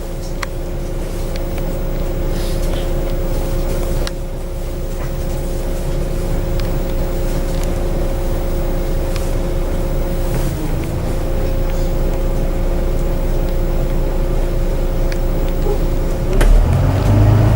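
Bus engine idling with a steady hum, heard from inside the bus. Near the end it revs up as the bus starts to move off.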